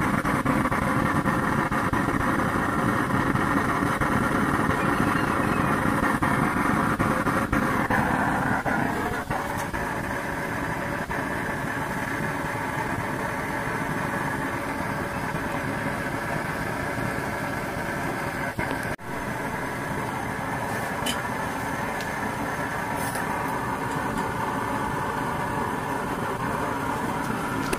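Home-built waste-oil drip stove burning used engine oil, its flame and electric blower fan running with a steady rushing noise. The sound drops a little about nine seconds in.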